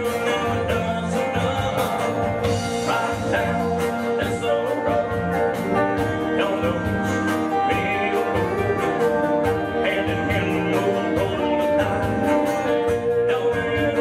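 Live country band playing a song: a steady drum beat under electric and acoustic guitars and bass guitar, with a male lead vocal.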